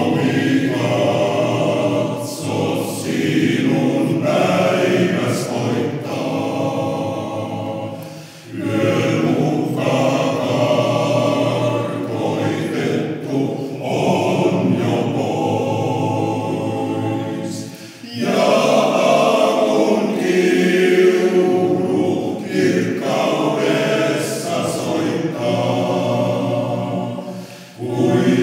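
Male choir singing unaccompanied in harmony, in long phrases with short breaks about 8 and 18 seconds in.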